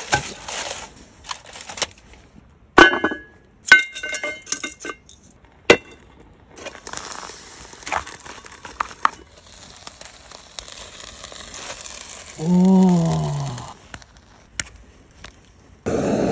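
Cooking sounds over a charcoal fire: aluminium foil crinkling and sharp clicks and clatters of things being handled, then a steady hiss as rice steams in a metal tray. A short vocal sound falls in pitch, and near the end a blowtorch starts with a loud, steady rush.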